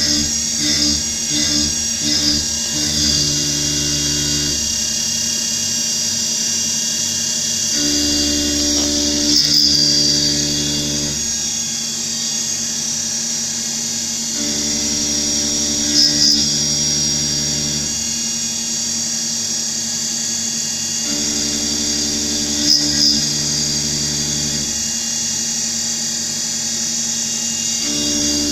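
CNC milling machine running a dynamic milling toolpath: a steady high-pitched spindle and cutting whine, with lower drive tones that switch in and out every few seconds as the cutter changes direction. In the first few seconds these tones pulse about twice a second.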